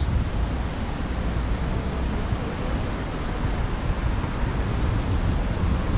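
Steady rushing noise of a river in flood running fast below.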